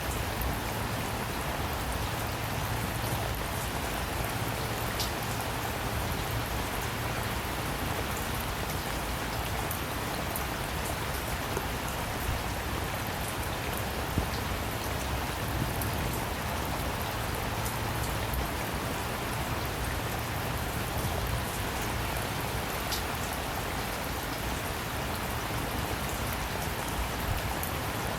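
Steady rain falling, with many small drops pattering on a surface and a low rumble underneath.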